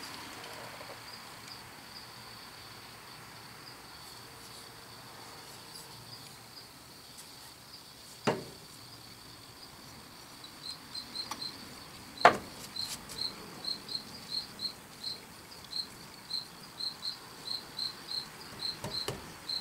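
A faint, high-pitched insect chirping, turning to short regular chirps about two a second in the second half. Two sharp knocks, about 8 and 12 seconds in, are the loudest sounds.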